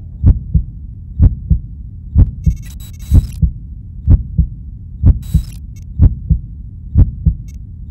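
Slow heartbeat on the soundtrack: paired low thumps, lub-dub, repeating about once a second. Two short bursts of high crackling static come through, one about 3 seconds in and one about 5 seconds in.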